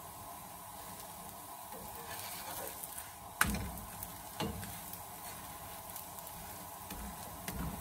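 Parsley and wholemeal-flour roti paratha sizzling steadily on a hot flat griddle pan, with a metal slotted spatula pressing it and knocking against the pan twice, about three and a half and four and a half seconds in.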